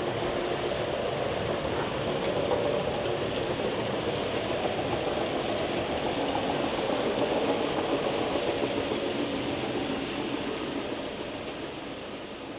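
H0-scale model freight train of loaded coal wagons rolling past on the track: a steady rumble of small wheels over rails with a thin high whine. It fades away near the end as the last wagons pass.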